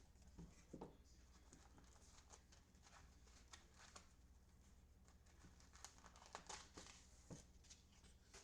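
Faint crinkling and scattered small clicks of trading-card packaging and cards being handled.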